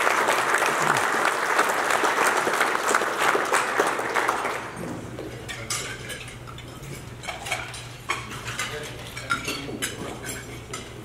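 Audience applauding, dying away after about four and a half seconds into scattered clinks of cutlery and dishes.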